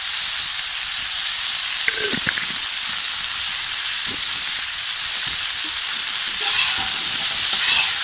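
Root vegetables sizzling steadily as they fry in oil in a very hot pan, a little louder near the end.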